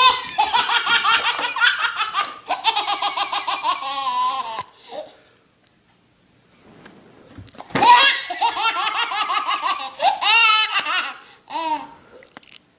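A baby laughing hard in two long fits of rapid, repeated peals, with a short pause of a couple of seconds between them and a last brief laugh near the end.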